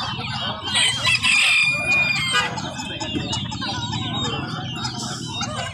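A rooster crows once, starting about a second in, amid the clucking of caged chickens.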